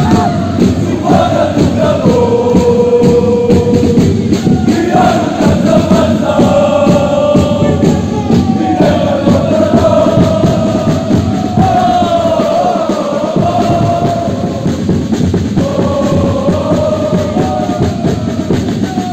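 Crowd of supporters singing a chant together in a sports hall: a sung melody of held and gliding notes over the steady noise of the crowd.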